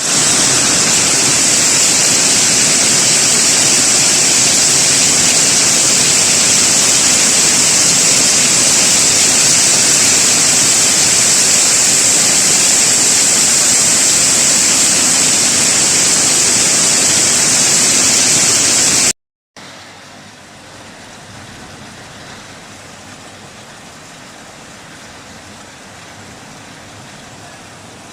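Heavy downpour as a loud, steady hiss. About 19 seconds in it cuts off and gives way to a much quieter steady hiss.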